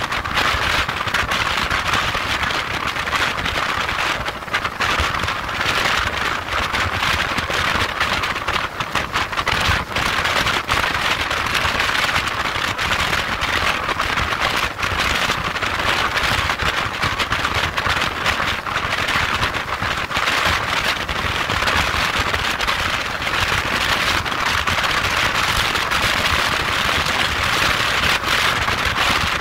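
Wind rushing over the microphone of a motorcycle at motorway speed: a steady hiss broken by frequent crackling buffets, over a low rumble from the road and the bike.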